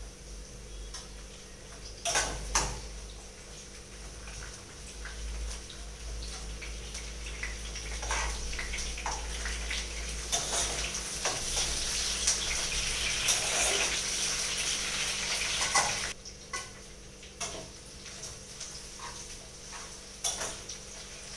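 Two sharp knocks of a utensil on a cooking pot, then chopped onion and tomato sizzling in hot oil as they are stirred, with clinks of the spatula against the pot. The sizzle builds and cuts off suddenly about three-quarters of the way through, and a few scattered clinks follow.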